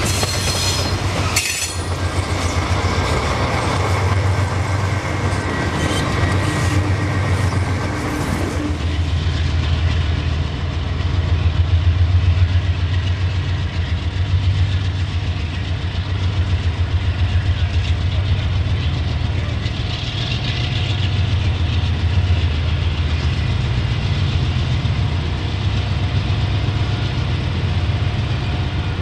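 General Electric Dash 8 diesel freight locomotives at work. For the first nine seconds or so a locomotive and freight cars roll close by with wheel and rail noise. Then comes a steady, deep, pulsing drone of the locomotives' diesel engines under load.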